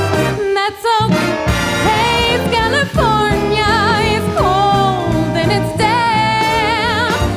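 Big band swing music with brass: a lead melody line with wide vibrato, holding long notes over the band's rhythm section.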